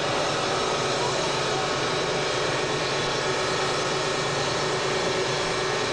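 Sustained drone of amplified noise from a live industrial band, steady and without a beat, made of many held tones over a dense hiss.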